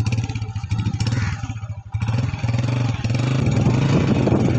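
Small motorcycle engine running steadily while the bike is ridden, a low drone with rapid firing pulses; it dips briefly and then gets louder from about three seconds in.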